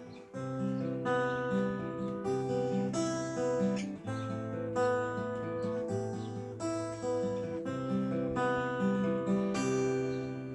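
Acoustic guitar strumming and picking ringing chords, with a new strum about every half second to second. The last chord rings out and fades near the end.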